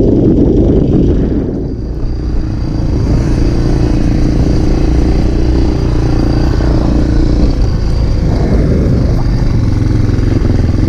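Motorcycle engine running steadily, its level dipping briefly about two seconds in before settling to an even drone.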